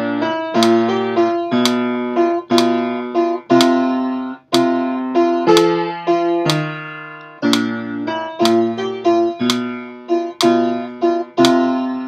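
Upright piano playing a slow chordal accompaniment, a chord struck every half second to a second and left to ring and fade before the next.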